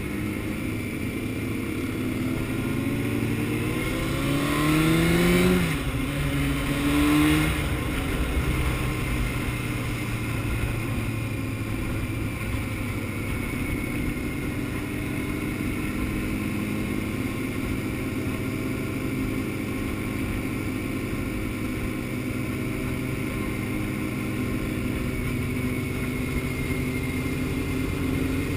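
Honda CBR600F's inline-four engine accelerating, its pitch climbing and then dropping at upshifts about five and a half and seven and a half seconds in, then running steadily at cruising speed with wind rushing past.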